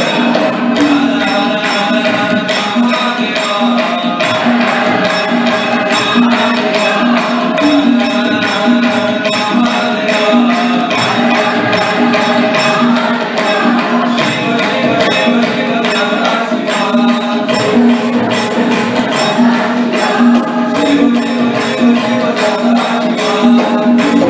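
A crowd of devotees singing a devotional chant together, over jingling percussion that keeps a steady beat.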